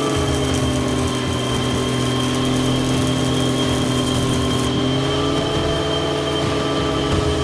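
Tractor engine running steadily, driving a PTO generator welder with a steady hum, overlaid by the crackling hiss of a 7018 stick-welding arc that stops a little over halfway through.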